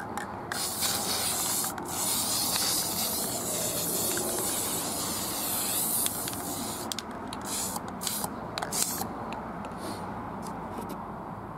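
Aerosol spray-paint can spraying a light coat of dark copper paint: long steady hissing passes with a brief break about two seconds in, then several short bursts between about seven and nine seconds in.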